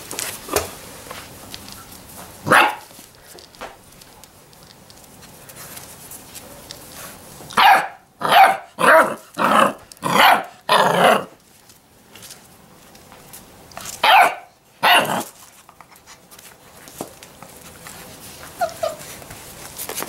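Six-week-old Labrador retriever puppies barking. One bark comes a couple of seconds in, then a quick run of six loud barks, then two more a few seconds later.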